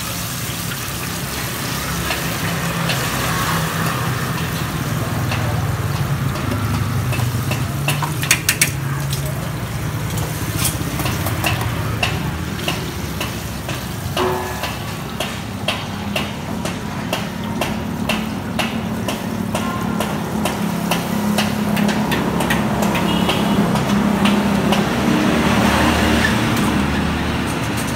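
Battered bananas deep-frying in a wok of hot oil with a steady sizzle, while metal tongs click and clink again and again against the wok and the metal tray, most often through the middle. Under it all runs the steady rumble of street traffic.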